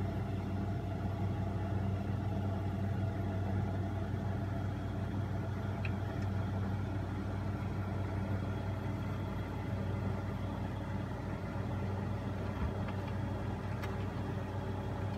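Steady hum from a turntable playback setup as a 45 rpm single spins before the music starts, with two faint ticks, one about six seconds in and one near the end.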